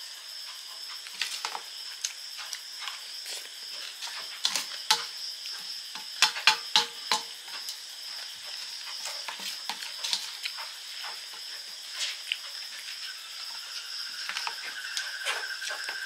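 A steel spoon clinking and scraping on a stainless-steel plate as puffed rice (muri) is mixed and scooped, in sharp irregular clicks with a loud cluster about six seconds in, and chewing of the crunchy muri near the end. A steady cricket trill runs underneath.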